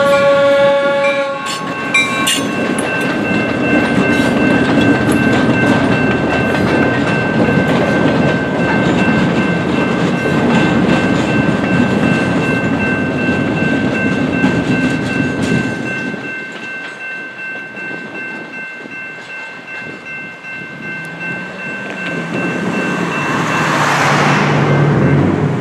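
A Norfolk Southern GP38-2 locomotive's multi-note air horn ends about a second in. Then the train rolls through the grade crossing, and the rumble of wheels and rail cars drops away after about sixteen seconds. Over it, the crossing's General Signals type-2 electronic bell rings with a steady high tone, and a rushing sound swells and fades near the end.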